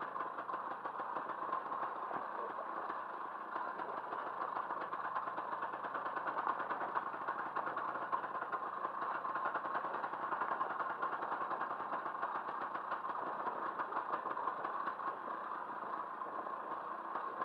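Motorcycle engine running at a steady pace while riding, its rapid firing pulses heard as an even drone with no change in speed.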